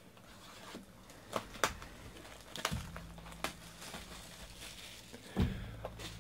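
Clear plastic wrapper of a baseball card pack being torn open and crinkled as the cards are pulled out, a run of scattered sharp crackles and clicks.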